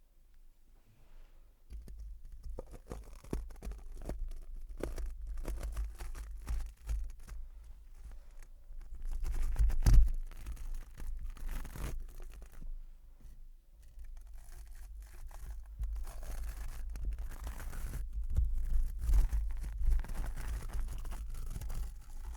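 Close-miked ASMR trigger: irregular scratching and scraping strokes right at the microphone, starting about two seconds in, with the loudest stroke about ten seconds in.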